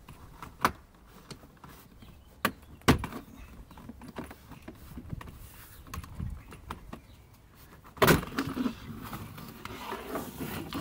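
Hands handling cables and plastic car interior trim: scattered sharp clicks and knocks with rustling between them, then a louder stretch of rattling and scraping from about eight seconds in.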